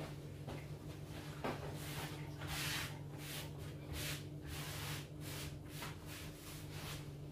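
Cloth wiping a wooden chopping board in a run of quick rubbing strokes, starting about two seconds in. A steady low hum runs underneath.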